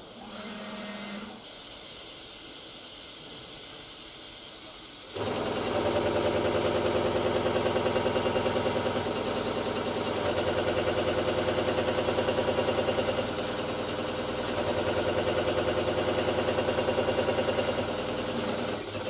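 A brief hum and a steady hiss from the machine, then about five seconds in a louder, steady machining sound from a WFL mill-turn lathe boring out a spinning steel workpiece. Several steady tones in it waver in a quick, even rhythm.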